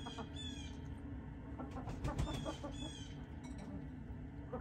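Chickens feeding: short high calls that fall in pitch, coming in pairs about half a second apart, twice, with light pecking taps on the ground in between.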